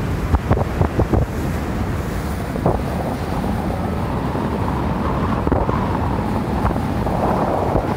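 Wind buffeting the microphone on the deck of a moving cruise boat, with gusts in the first second or so, over a steady low rumble of the boat and the water.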